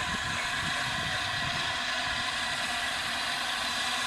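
LNER A3 Pacific steam locomotive 60103 Flying Scotsman drifting slowly toward the platform, giving a steady hissing noise with a low rumble underneath and no distinct exhaust beats.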